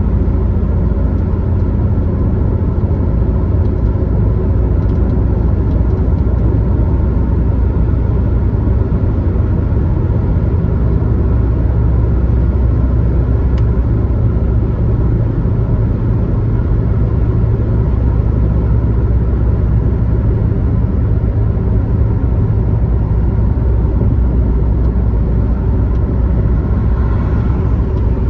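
Steady low rumble of a car driving at highway speed: engine and tyre noise, unchanging throughout.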